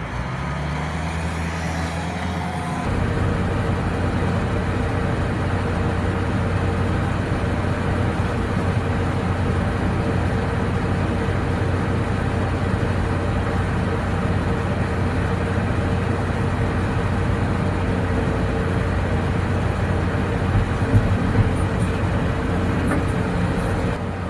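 Heavy diesel engine rising in speed over the first three seconds, then running at a steady speed with a constant hum.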